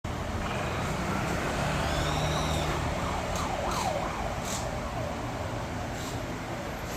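Vehicle and traffic noise, with a wail that rises and falls quickly several times midway.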